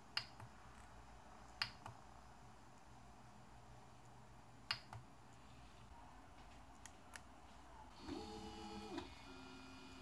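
Three sharp clicks, each followed by a softer one, as the 3D printer's LCD control knob is pressed and released. About eight seconds in, the printer's stepper motors whir for a second with a whine of several steady tones, then one lower tone holds as the axes keep moving.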